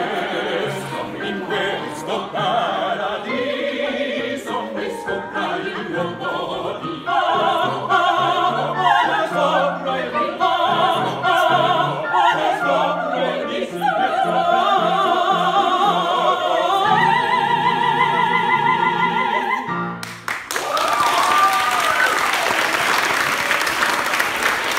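A quartet of opera singers, two women and two men, sing in harmony to an electric keyboard accompaniment, building to a long held final chord. About twenty seconds in, the singing cuts off and audience applause and cheering take over.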